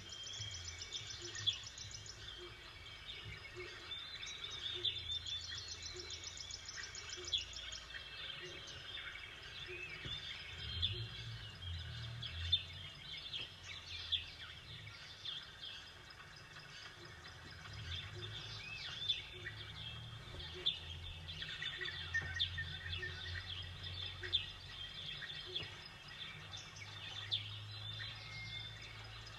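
Several small songbirds chirping and calling over a steady low rumble, with a high rapid trill a couple of times in the first few seconds.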